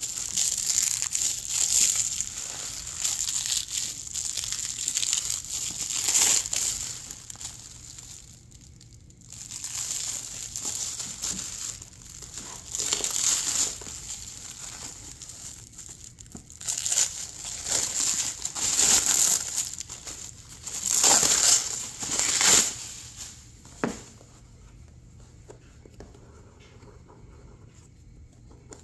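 Clear plastic wrap crinkling and crackling in irregular bursts as it is pulled and peeled off a cardboard box. It dies away to faint rustling about four seconds before the end.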